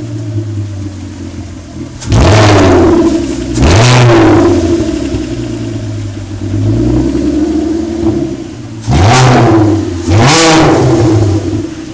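VW Golf 4 VR6 engine running with its exhaust system removed, blipped about five times, four sharp rises and one softer, and each time dropping back to a rough idle.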